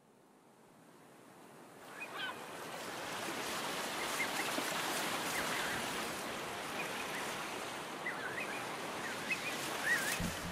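Sea surf washing, fading in over the first few seconds, with birds giving short wavering calls over it again and again. Music comes in right at the end.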